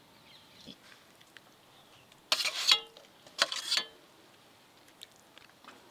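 Two short scrapes of a metal serving spoon against a stainless-steel bowl, about a second apart, the first leaving a brief metallic ring.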